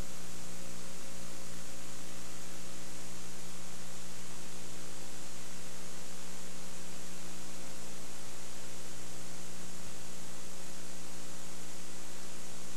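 Steady mains hum over hiss, with no other sound: the sound track has dropped out on a damaged VHS tape, leaving only electrical hum and tape noise.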